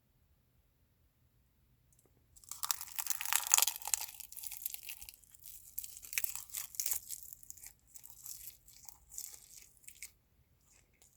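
Close-up crunchy chewing of food, starting about two seconds in, loudest at the start and thinning into slower, softer crunches before stopping near the end.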